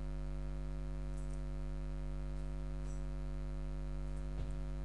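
Steady electrical mains hum with a ladder of even overtones, with a faint short knock about four and a half seconds in.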